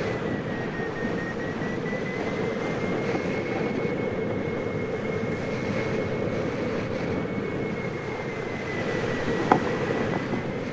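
Steady rush of air from a hang glider in flight, with a faint thin whistle that drifts slightly up and down in pitch. One sharp click about nine and a half seconds in.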